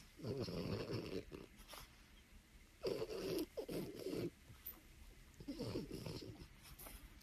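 French bulldog snoring: four rough, throaty breaths, each about a second long and a second or two apart.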